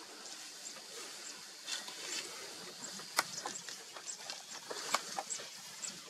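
An African elephant feeding close by: grass being torn and chewed, with sharp crisp snaps and crunches scattered through, the loudest about three and five seconds in. Short high chirps sound faintly in the background.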